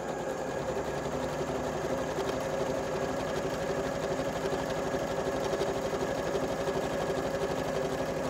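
Janome electric sewing machine stitching a straight seam at a steady speed through two layers of quilting cotton.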